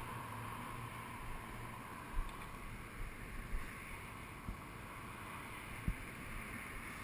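Faint steady outdoor background noise with wind on the microphone. A low hum fades out in the first second or two, and a few soft knocks come later.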